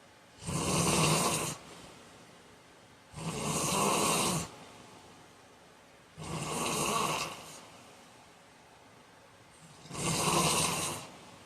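A man snoring in his sleep: four loud snores, each lasting a little over a second, about three seconds apart, with quiet between them.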